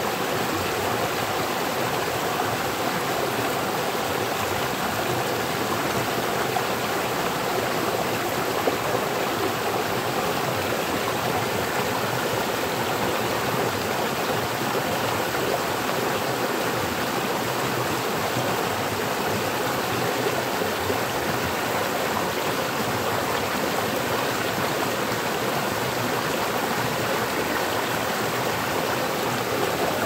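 Water of a small rocky stream pouring over a low rock ledge into a pool, a steady rushing and splashing that does not change.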